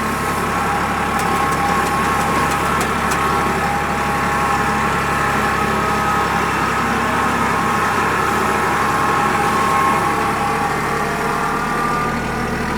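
Farm tractor engine running steadily as the tractor is maneuvered, with a whine that holds a nearly even pitch.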